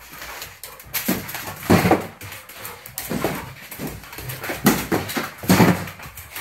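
A dog tearing around a small, echoing room, giving irregular thumps and scuffles, about a dozen short bursts of sound.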